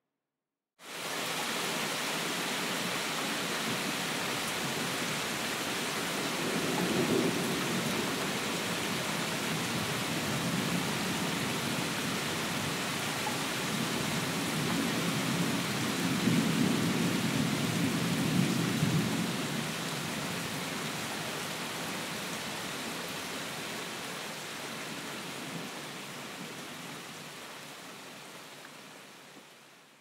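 Steady heavy rain with two low rolls of thunder, a short one about seven seconds in and a longer, louder one from about fifteen to nineteen seconds. The rain cuts in abruptly about a second in and fades out near the end.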